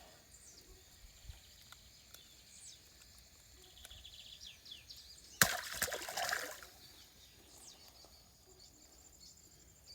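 Birds chirping in quiet open-air background, with one sudden loud noise about five seconds in that dies away over about a second.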